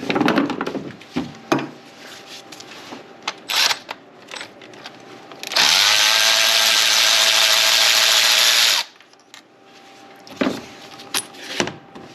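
Cordless power tool spinning a 16mm spark plug socket to back a spark plug out: one run of about three seconds, its whine rising as the motor spins up, then steady, cutting off suddenly. Scattered clicks and knocks of tool handling before and after it.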